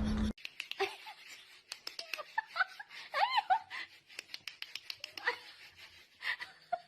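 A small pet giving a few short, high squeaky calls that arch up and down in pitch, among many scattered light clicks and taps.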